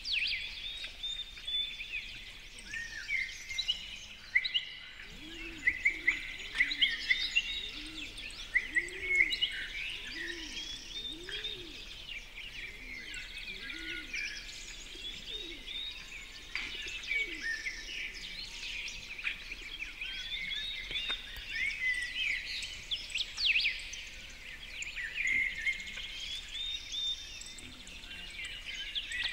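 A busy chorus of songbirds chirping and trilling, many short high calls overlapping throughout. A low call repeats about once a second for several seconds near the middle.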